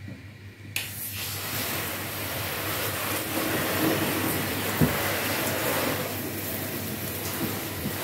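Garden hose spray nozzle switched on about a second in, then a steady hiss of water spraying onto a car's paint and windshield, rinsing off soapy cleaner before it dries. One sharp knock sounds about five seconds in.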